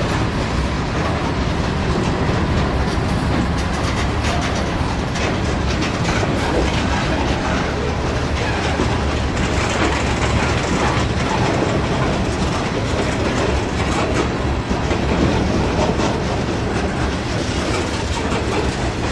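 Freight train of ballast hopper cars rolling past close by: a steady rumble of steel wheels on rail, with repeated clicks as the wheels pass over rail joints.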